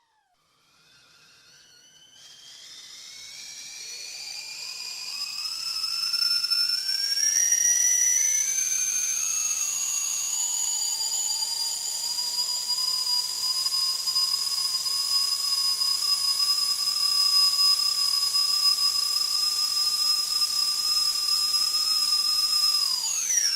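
Whistling kettle coming to the boil: a faint hiss builds into a whistle whose tones glide upward and cross over the first ten seconds, then settle into a steady, loud two-tone whistle. Near the end the pitch drops sharply and the whistle stops.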